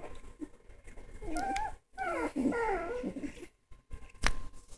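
Three-week-old European Basset Hound puppies whining and whimpering in a few short, wavering cries through the middle. A single sharp click comes near the end.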